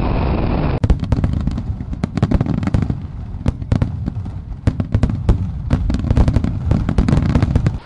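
Fireworks crackling: a dense, irregular run of sharp pops over a low rumble. It starts abruptly about a second in and cuts off suddenly near the end.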